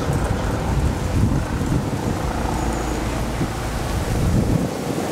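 Wind rumbling on the microphone over the low, steady sound of vehicles on the road.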